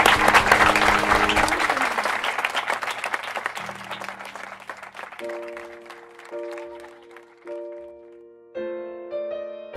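Guests clapping in applause, loudest at first and dying away over about five seconds. Under it, and then on its own, background music of held chords that change about once a second.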